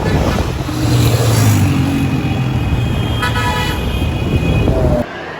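Road traffic with engine and wind noise, and a vehicle horn honking briefly about three seconds in. The sound cuts off suddenly near the end.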